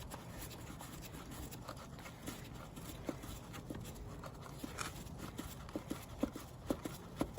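Faint, irregular small clicks and handling noises as the air filter bolt is screwed into the dirt bike's airbox, the clicks coming more often in the last couple of seconds.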